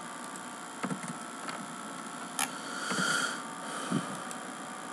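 Steady electrical hum and hiss of a desktop recording setup, with a few sharp computer-mouse clicks, a short rustle about three seconds in and a soft knock near the end.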